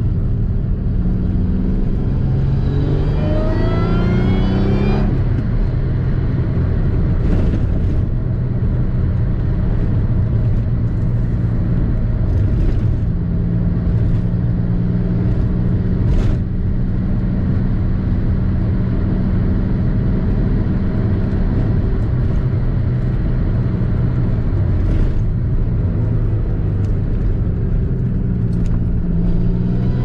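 Supercharged 3800 V6 in a Pontiac Fiero under way: it revs up from about two seconds in, drops suddenly in pitch about five seconds in as in a gear change, then runs steadily at cruise and begins climbing again near the end.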